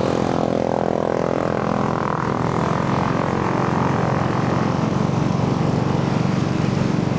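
Manual-transmission motorcycle engine running steadily at constant revs as it rides through floodwater.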